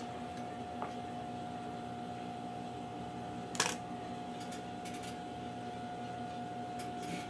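Steady hum with a few light clicks and one sharp click about three and a half seconds in, from handling fabric at an electric sewing machine between stitching runs.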